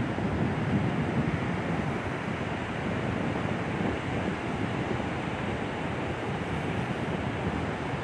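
Wind blowing across the microphone in gusts, over the steady wash of ocean surf breaking on the shore.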